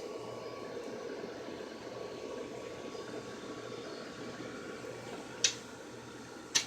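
Steady background hiss, with two short sharp clicks about a second apart near the end.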